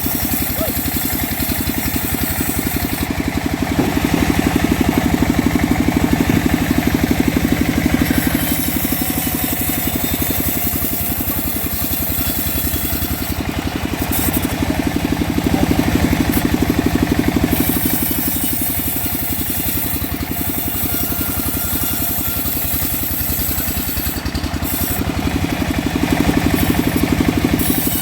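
The engine-driven homemade bandsaw sawmill running steadily, with a fast even pulse. It grows louder for a few seconds three times.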